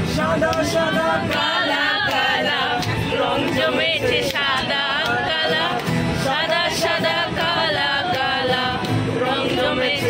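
A man singing to a strummed Yamaha acoustic guitar, with other voices, a woman's among them, singing along.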